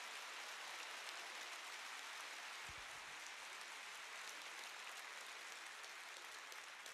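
Large arena crowd applauding: a steady spread of many hands clapping that slowly dies down.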